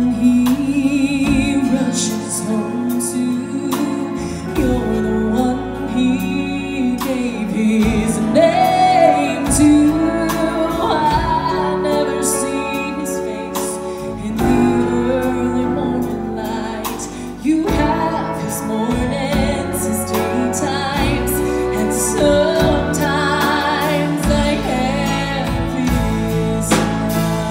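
A live country band with drums, electric guitars and upright bass plays a song, with a woman singing lead.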